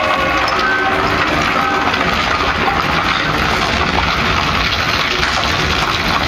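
Loud soundtrack of a projection-mapping show played over outdoor loudspeakers: a steady, dense wash of noise with scattered short musical tones.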